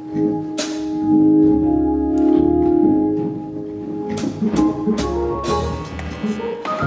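Organ playing held chords, with sharp percussion hits, as the instrumental start of a church song.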